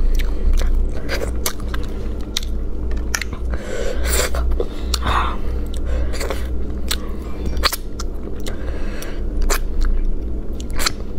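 Close-up chewing and biting on spicy braised rabbit head, with many sharp clicks and crackles as meat is picked and bitten off the small bones, over a steady low hum.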